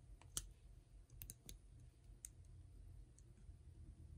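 Faint metal clicks of jewelry pliers gripping and wrapping brass head pin wire into a wrapped loop: one sharper click about half a second in, then a few lighter scattered clicks.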